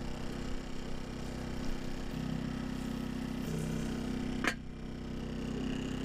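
Steady low hum of a portable inverter generator running, its pitch shifting slightly a couple of times. About four and a half seconds in, one sharp metal clack as the grill's metal lid is set down over the skillet.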